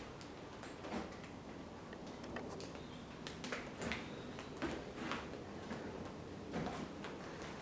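Slow, irregular footsteps and small knocks on a floor, faint over a steady low hiss.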